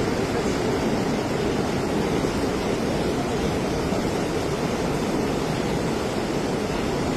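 Rushing water: a steady, even noise heavy in the low range, with no breaks or distinct events, as from rain-swollen runoff.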